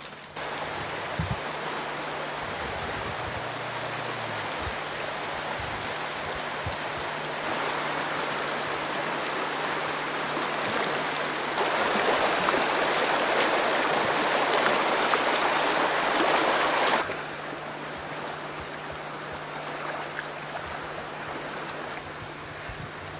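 Shallow rocky salmon stream rushing over stones, a steady noise that grows louder about a third of the way in, is loudest for about five seconds in the middle, then drops back. A steady low hum runs underneath.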